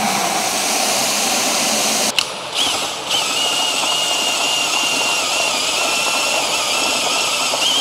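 Water from a garden hose running into a plastic bucket for about two seconds. A handheld drill with a mixing paddle then starts about two and a half seconds in and runs steadily with a high whine, mixing thin-set tile mortar in the bucket, its pitch rising slightly near the end.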